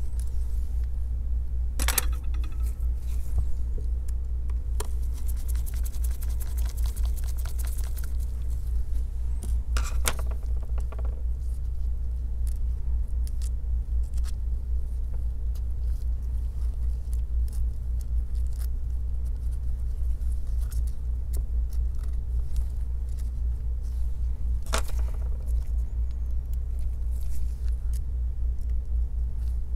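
A steady low hum with scattered light clicks, taps and scrapes of small metal and plastic parts being handled and fitted at a laptop's display hinge, including a few seconds of rapid fine ticking about five seconds in.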